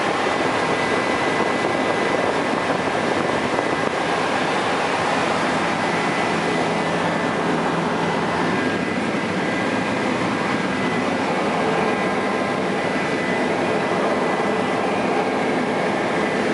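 Helicopter in flight, heard from inside the cabin: a loud, steady rush of engine and rotor noise with a thin steady whine over it.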